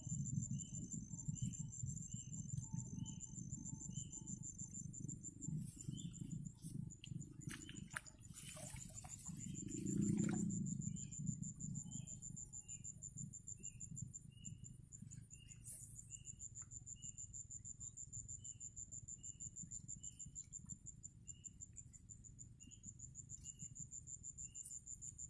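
Insects trilling steadily at a high pitch, with a short chirp repeating about twice a second, over a low rumble. A louder rustling swell comes about eight to eleven seconds in.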